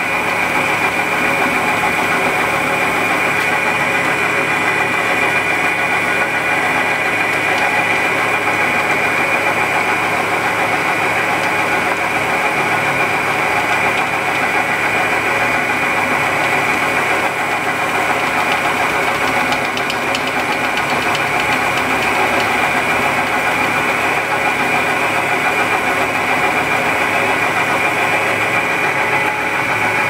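Metal lathe running steadily while a knurling wheel rolls a knurl into a small spinning steel knob blank. The motor and gearing give a constant high whine.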